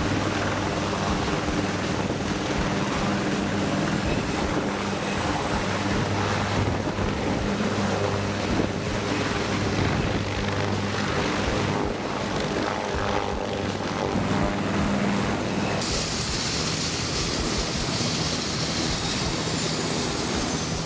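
Bell AH-1Z Viper attack helicopter's rotor and twin turboshaft engines running steadily at close range. About 16 seconds in, a high turbine whine comes in over the rotor noise.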